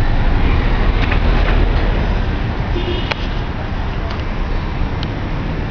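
Road traffic: a steady noise of passing vehicles and engines, with a few short clicks, the sharpest about three seconds in.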